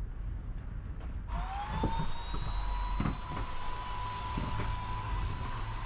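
Cordless stick vacuum switching on about a second in, its motor whine rising in pitch as it spins up and then holding steady while it is worked over the floor, with a few faint knocks.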